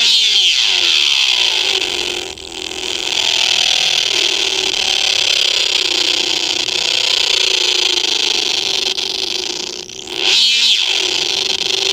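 Circuit-bent ray gun toy sound circuit playing through a small speaker: a hissy electronic drone with tones that slide slowly, bent downward at the start by the pitch knob and body contacts. It cuts out briefly twice, about two seconds in and again near ten seconds, then comes back.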